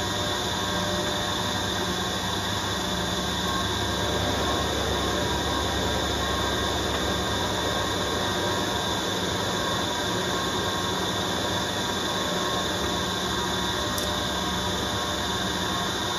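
Harrison M400 lathe running steadily under power, spinning a large four-jaw chuck that holds a steel mounting plate.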